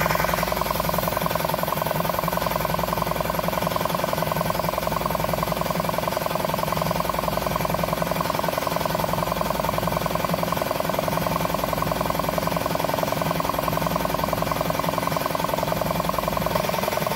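Ironton oilless air compressor pump running under load, pumping up its tank with a steady fast-pulsing clatter. The pitch shifts slightly near the end.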